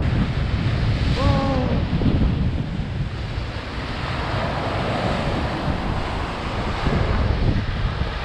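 Surf breaking and washing over black basalt rocks, with strong wind buffeting the microphone in a heavy low rumble.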